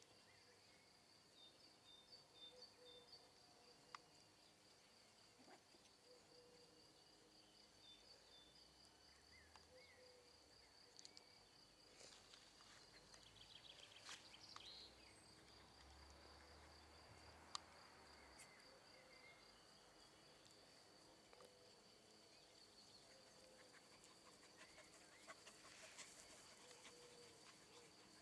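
Near silence: faint outdoor ambience, with a steady high-pitched insect-like whine throughout and a few faint chirps and soft clicks.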